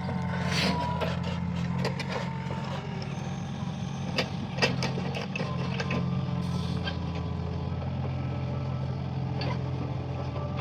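Mini excavator working: its diesel engine runs steadily while scattered sharp clanks and knocks from the digging gear ring out, the loudest pair a little over four seconds in.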